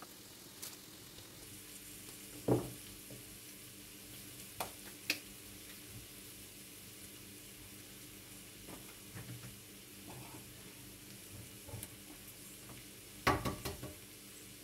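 Brief knocks and clatters of kitchen things being handled and set down on a wooden board and a baking tray, over a steady faint hiss. The loudest knock comes about two and a half seconds in, and a short clatter of several knocks comes near the end.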